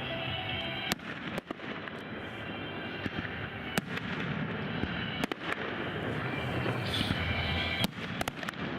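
Fireworks bursting in sharp bangs at irregular intervals, with a quick cluster of bangs near the end, over continuous music.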